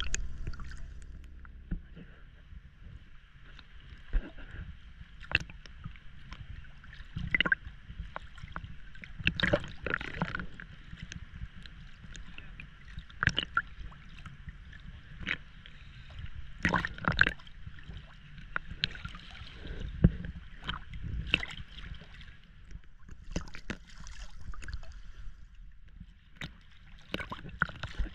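Small sea waves sloshing and splashing against a camera held at the water's surface, with irregular sharp slaps of water every second or two over a steady wash.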